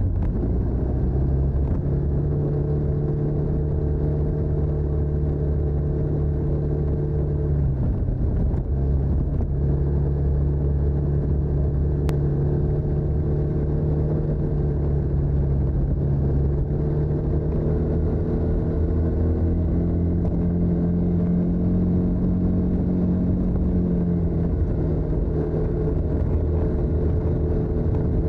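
TVS NTorq 125 scooter's stock exhaust, its single-cylinder four-stroke engine running steadily while riding. The pitch dips briefly about eight seconds in, then rises slowly and falls back a few seconds before the end.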